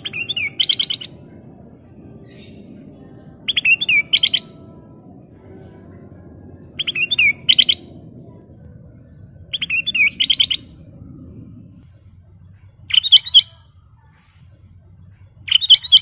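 Ruby-throated bulbul singing: six short, bright phrases about three seconds apart, each a quick run of warbled notes, the last two briefer.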